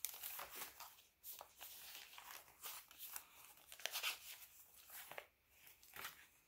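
Paper pages of a handmade junk journal rustling and crinkling as they are turned and handled, a string of faint short rustles.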